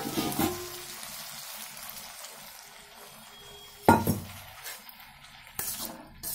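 Metal spatula stirring vegetables in a kadai, scraping and clinking against the pan over a soft, steady sizzle of frying. There is one loud clank about four seconds in and a few more knocks near the end as the pan is moved on the stove.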